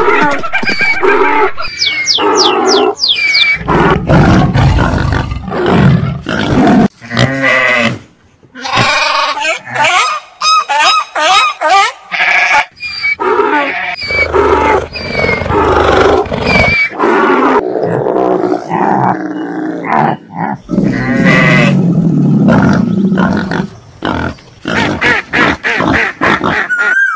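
A string of animal calls, one short cry after another with abrupt cuts between them. It mixes low roars and grunts with higher calls, including a run of quick rising cries a couple of seconds in.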